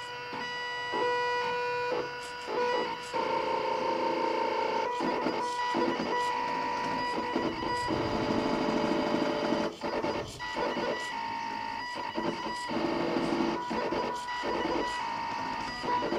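Homemade CNC pen plotter at work: its axis motors whine in steady tones that start, stop and change pitch as the carriage moves, with frequent sharp clicks as the Z-axis servo lifts and drops the pen to plot dots.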